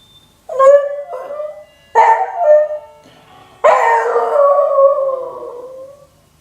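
A beagle howling in three bouts: two short ones, then a long howl of about two and a half seconds that slides down in pitch. The voice is rough, which the owner puts down to the dog's age of nine.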